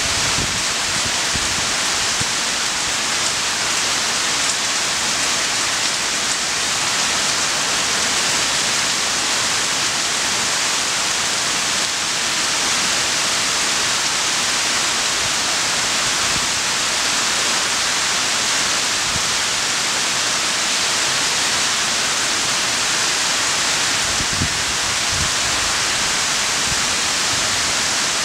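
Heavy rain falling steadily on trees and grass, a dense, even hiss. A few brief low rumbles come through about three-quarters of the way in.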